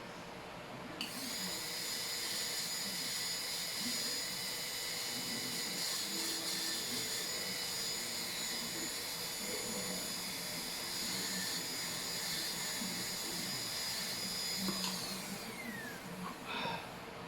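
High-speed dental drill (air-turbine handpiece) running with a steady high whine while cutting the cavity, then spinning down with a falling pitch near the end.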